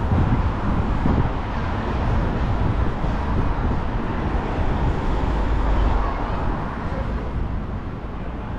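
Road traffic on a busy street: cars passing with a steady low rumble of engines and tyres, swelling slightly in the middle and easing a little near the end.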